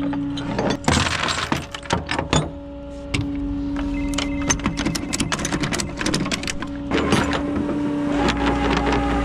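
Recovery chains and hooks clanking and rattling against a tow truck's ribbed steel flatbed deck as they are gathered and stowed, in many quick irregular clinks, over the steady hum of the truck running.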